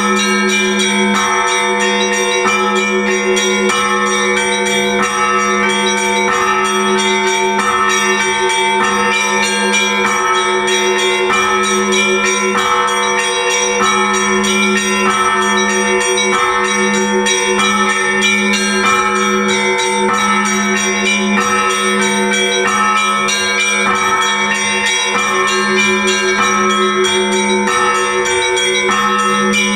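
Russian Orthodox church bells rung together to call worshippers to the Divine Liturgy: a deep bell hums steadily beneath smaller bells struck over and over in a continuous, even rhythm.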